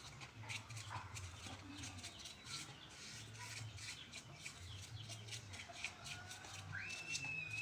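Faint scattered clicks and light knocks, over an on-and-off low hum. Near the end a bird calls once, a single high note that rises and then holds for about a second.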